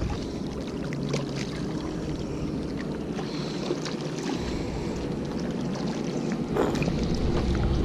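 Wind noise on the microphone and water lapping against jetty rocks, with a few faint clicks from handling the fish and lure.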